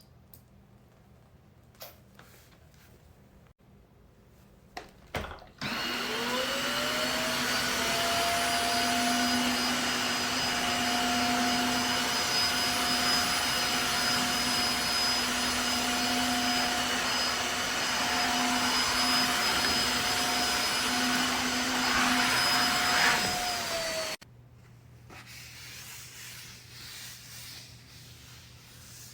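Tineco cordless wet-dry vacuum mop switched on after a couple of clicks: its motor whines up to speed, runs steadily for about eighteen seconds, then spins down when switched off.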